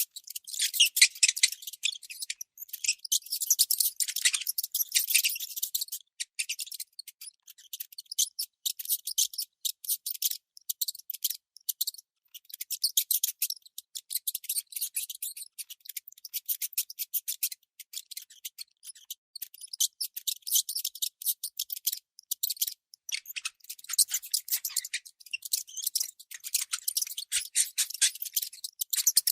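Baby mouse squeaking: rapid, high-pitched squeaks in long fast runs with a few brief pauses.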